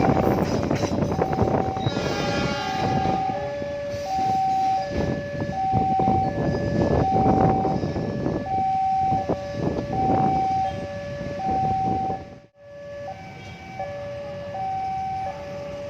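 Railway level-crossing warning alarm sounding a steady two-tone high-low signal over the rumble of a passing train. The train noise cuts off abruptly about three quarters of the way through, and the alarm carries on more quietly.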